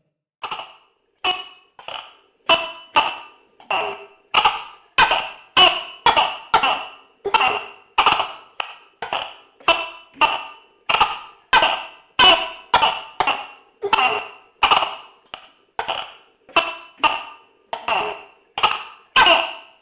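Tokay gecko calling: a long run of sharp, evenly spaced calls, about three every two seconds, over a faint steady hum.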